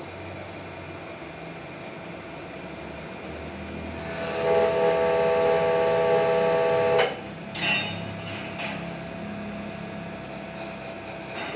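Hydraulic machinery humming steadily. About four seconds in, a loud steady whining tone joins, holds for about three seconds, then cuts off with a clunk and is followed by a short second burst.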